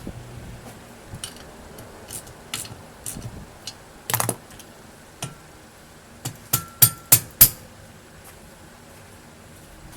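Scattered sharp metal clanks and knocks, a few ringing briefly, with a quick run of four about six and a half to seven and a half seconds in.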